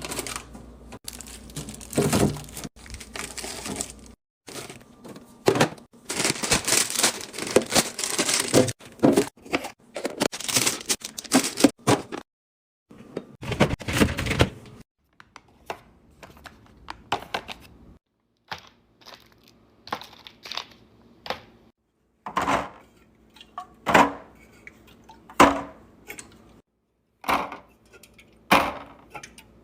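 Food packaging crinkling and tearing, with containers knocking and being set down in a refrigerator, in short clips that start and stop abruptly.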